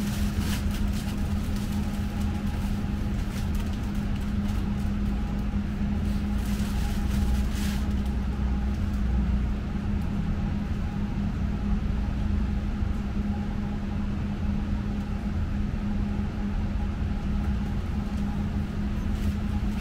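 Steady electrical hum and low rumble inside a tram, heard while the tram stands still, with a few brief clicks and rattles.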